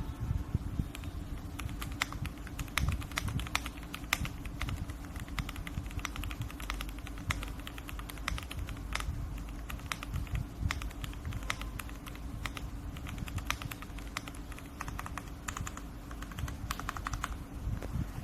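Typing on an RK M75 wireless mechanical keyboard with PBT double-shot keycaps and full foam: a steady, irregular run of quick key clacks over a low steady hum.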